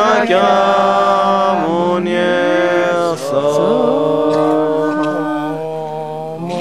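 A man chanting a Buddhist mantra in long held melodic notes that slide between pitches, with a short break about three seconds in.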